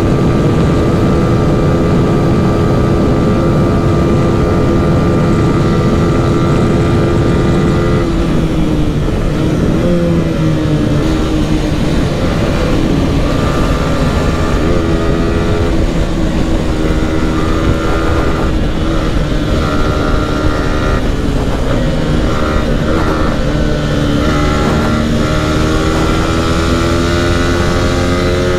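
Yamaha R15 V4's 155 cc single-cylinder engine running steadily at high revs at highway speed, under heavy wind rush. About eight seconds in the revs drop off, then climb and fall again and again as the bike slows and the rider works through the gears.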